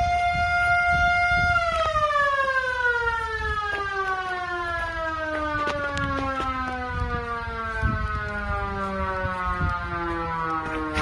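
Electric air raid siren holding a steady high wail, then winding down about a second and a half in: the pitch falls slowly and steadily as the rotor coasts after its power is cut.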